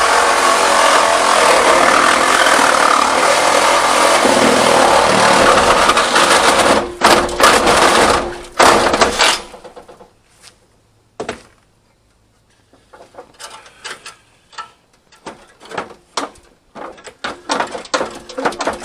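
Power tool cutting the van's sheet-metal body, running steadily, then stopping about six seconds in, followed by a few short triggered bursts. After that come scattered lighter knocks and rattles of metal being handled.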